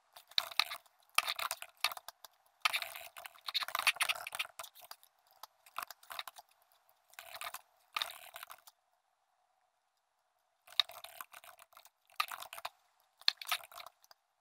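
Computer keyboard typing and mouse clicking, sped up in a fast-forwarded recording, so the keystrokes run together into irregular bursts of rapid clicks with short pauses between.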